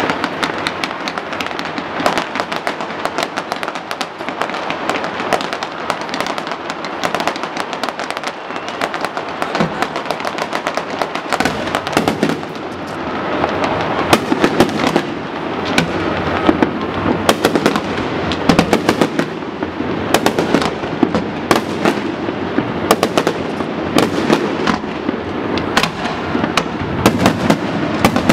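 Fireworks display going off in a dense, unbroken run of sharp cracks and bangs, with crackling effects among the bursts. The rumble grows fuller about halfway through.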